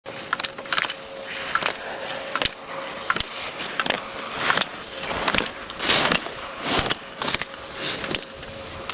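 Alpine snowboard carving through a slalom course: the board's edges scrape and hiss on hard groomed snow in a run of swishes, and plastic slalom gate poles are knocked aside with sharp clacks, about one every second.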